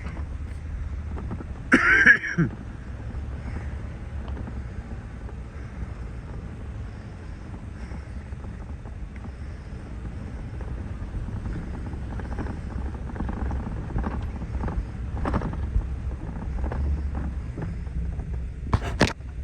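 Steady low rumble of wind on the microphone while walking across a pasture, with scattered soft footfalls. A short, louder sound comes about two seconds in, and two sharp knocks near the end.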